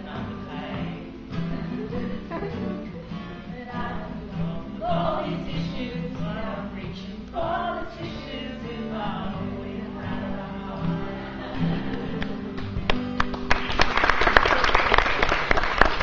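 Acoustic guitar strummed while several voices sing a song together. About thirteen seconds in the song ends and an audience breaks into applause.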